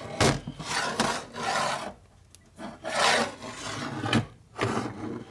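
Harley 45 flywheel scraping against a metal-topped workbench as it is turned over by hand. There are several rough, rasping strokes of half a second to a second each, with a sharp click about halfway through.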